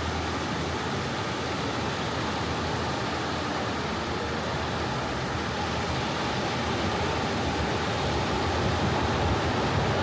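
Ocean waves washing onto a beach: a steady rushing wash that swells a little near the end.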